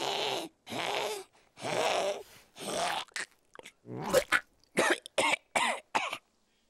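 An animated cat character, voiced by an actor, hacking and retching over and over to cough up a hairball. There are about ten coughs, and they come shorter and quicker in the second half.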